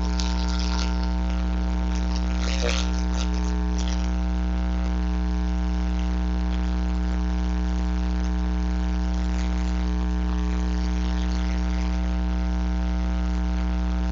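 Steady low electrical hum with a long row of even overtones, unchanging in pitch and level, like mains hum picked up on the audio line. There is a faint brief rustle about three seconds in.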